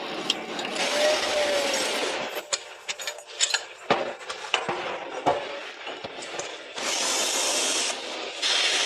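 Workshop tool noise: rubbing and scraping with scattered clicks and knocks, and a burst of hiss lasting about a second near the end.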